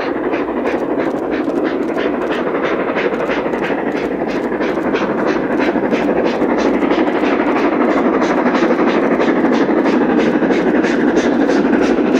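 Steam train running, with a fast, even beat of about three pulses a second over a steady rushing noise, growing a little louder after the middle.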